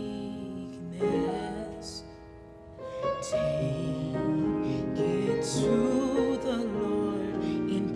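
A woman singing a slow, tender worship song solo, with held notes and vibrato and a short pause between phrases about two seconds in.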